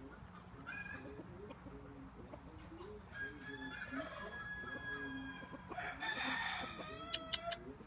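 Chickens clucking low and repeatedly throughout. About three seconds in, a rooster gives one long crow lasting nearly three seconds. Near the end come three sharp clicks close together, the loudest sounds.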